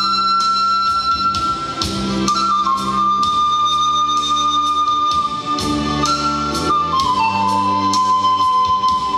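Romanian pan flute (nai) playing a slow melody of long held notes over an accompaniment of bass and regular drum beats.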